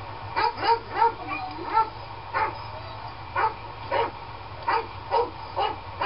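A dog barking and yipping in a string of about a dozen short barks, irregularly spaced, over a steady background hum.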